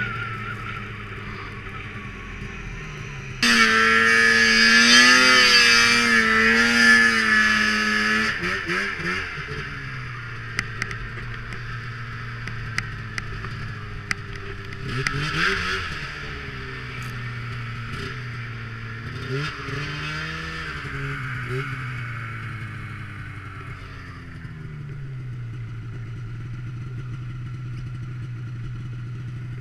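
Snowmobile engine running through deep powder, its pitch rising and falling as the throttle is worked. It is much louder and higher from about three to eight seconds in, rises and falls again a few times, and holds a steadier lower note near the end.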